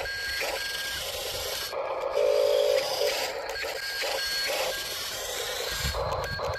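Small electric motors and gearboxes of radio-controlled construction models whirring in spells that start and stop, with a thin high whine.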